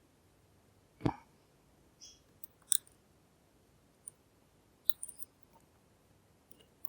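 Lock picking in a NEMEF NF4 dimple lock: scattered small clicks and taps of the pick and tension tool working the pins, with a louder knock about a second in.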